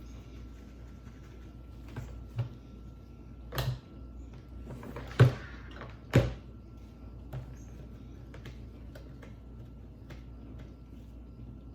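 A few separate knocks and clunks of a drip coffee maker's parts being handled while it is wiped clean; the loudest knock comes about five seconds in, with another a second later.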